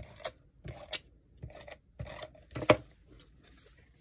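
Hands handling and rubbing paper and cardstock on a scrapbook layout: a run of short rustles and scrapes, with one sharper tap about two and a half seconds in.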